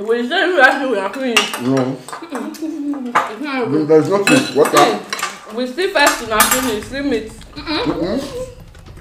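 Eating utensils clinking and scraping against dishes in quick, irregular strokes during hurried eating of yam and pepper soup, with wordless voice sounds mixed in.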